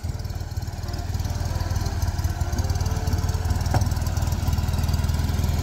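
Classic Fiat 500's rear-mounted, air-cooled two-cylinder engine idling steadily with a low, even putter, like a small lawnmower engine.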